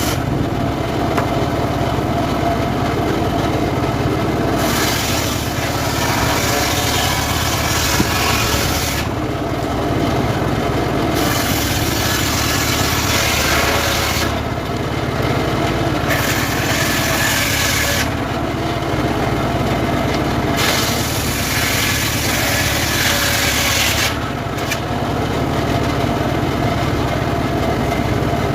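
Homemade engine-driven sawmill (srekel) running steadily while its blade rips sengon wood. The high hiss of the cut comes and goes several times over the steady motor drone.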